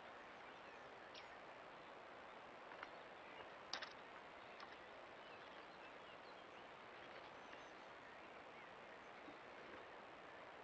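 Steady faint hiss from a Browning Spec Ops Edge trail camera's microphone, with a constant thin high whine, broken by a few short sharp ticks; the loudest is a quick double tick about four seconds in.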